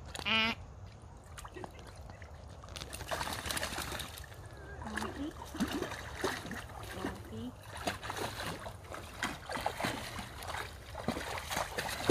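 Bernese mountain dog wading through a shallow creek: water splashing and sloshing around its legs in irregular strokes, picking up about three seconds in. Right at the start comes one brief pitched vocal sound, the loudest moment.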